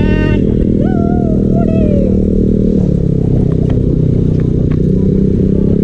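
KTM 250 Duke's single-cylinder engine running steadily as the bike rides along in traffic. A short high tone sounds at the very start and a wavering tone about a second in, over the engine.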